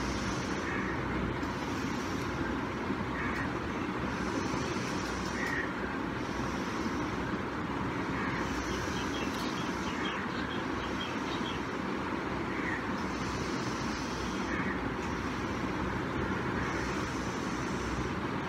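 Steady background noise, with faint short chirps every couple of seconds and a brief run of faint ticks about halfway through.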